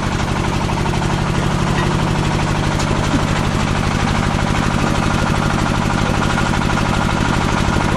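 Diesel engine driving a paving-block making machine, running steadily with an even, rapid beat.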